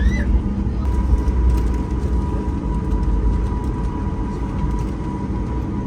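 Cabin noise inside a Boeing 737 MAX 8 airliner: a steady low rumble, with a thin steady whine joining about a second in.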